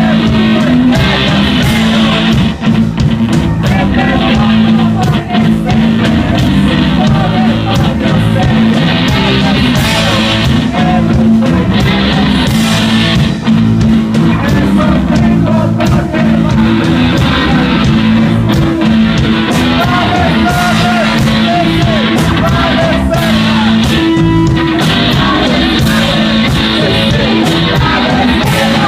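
Live rock band playing loud, with a woman singing into a microphone over electric guitar.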